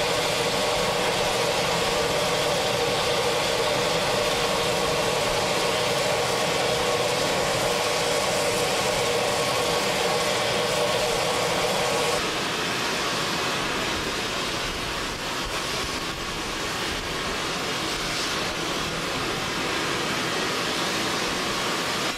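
Steam locomotive standing in steam: a steady hiss mixed with machinery noise. About twelve seconds in the lower part of the noise drops out suddenly, leaving a slightly softer, even hiss.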